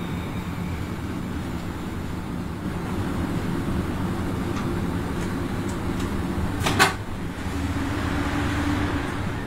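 Steady running drone and hum inside the cab of a Class 7E electric locomotive under way, with one sharp clack about two-thirds of the way through.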